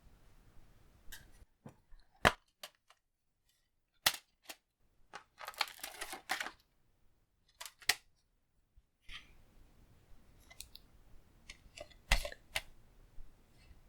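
Plastic Blu-ray case being opened and handled: a scattered series of sharp clicks and snaps, with a rustling stretch of a second or so in the middle.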